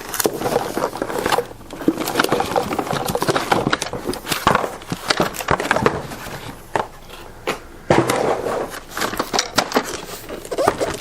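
Cardboard box and packaging being handled and pulled open: irregular rustling, scraping and crackling with short clicks and brief pauses.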